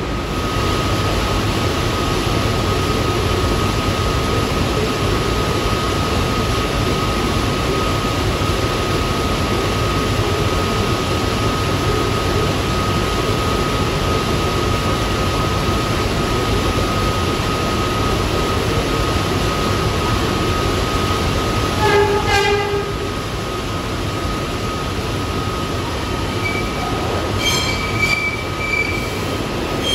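New York subway R142A train approaching through the tunnel with a steady rumble and whine. It gives one short horn blast about two-thirds of the way in, and near the end its wheels begin to squeal on the curve into the station.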